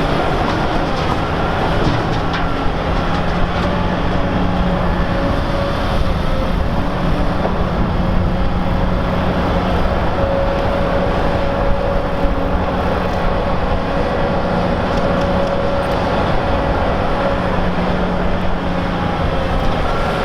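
Heavy diesel earthmoving machines working: a loud, steady engine drone with a held higher whine that strengthens through the middle.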